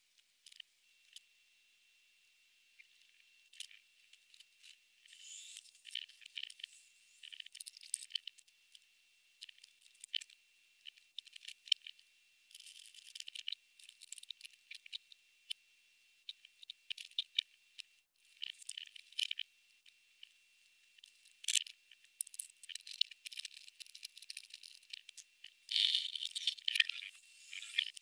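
Praying mantis chewing through a locust: irregular dry crunching and crackling clicks in clusters, densest near the end, over a faint steady high tone.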